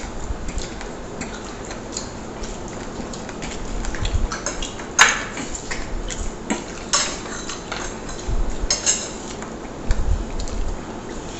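Forks and spoons clinking and scraping on plates while fried noodles and chicken are eaten: scattered short clicks, with one sharp clink about five seconds in the loudest.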